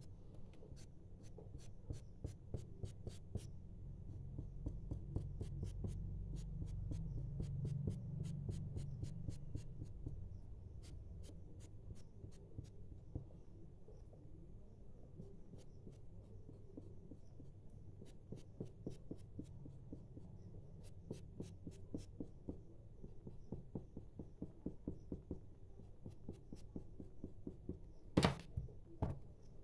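Felt-tip marker tapping and scratching on paper, drawing short dashes in quick runs of ticks. There is one sharper knock near the end.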